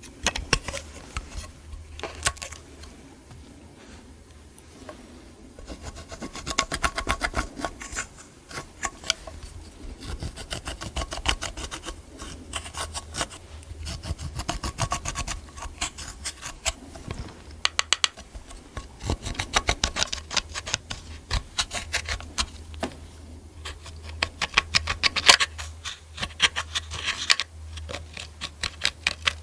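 Slime being squished and kneaded by hand, making dense crackling, popping clicks that come in uneven bursts, with a low steady hum underneath.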